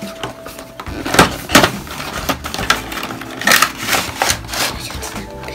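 Cardboard doll box being opened and its clear plastic blister tray handled: irregular clicks and crinkles of card and plastic.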